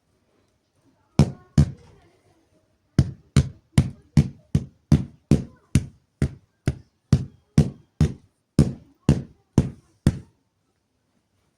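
Heavy blanket being beaten to knock the dust out: two sharp whacks, a pause, then a steady run of about seventeen whacks at roughly two to three a second that stops abruptly.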